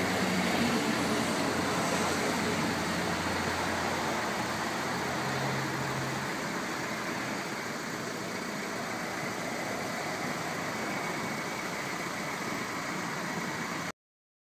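Steady motor-vehicle noise, a low hum under an even hiss, that cuts off suddenly near the end.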